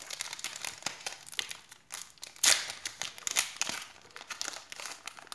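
Foil wrapper of a Pokémon trading-card booster pack crinkling as it is handled, a dense run of crackles with the loudest bursts about halfway through.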